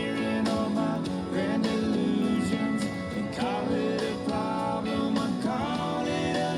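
Background country music: acoustic guitar with a singing voice.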